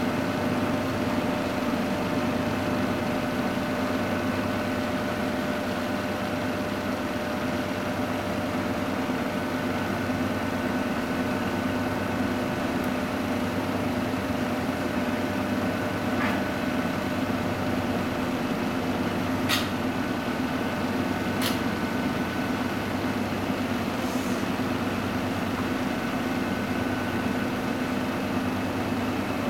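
Steady mechanical hum of a standing passenger train's machinery, holding several even tones over a low pulsing drone. Two short sharp clicks come a couple of seconds apart about two-thirds of the way through.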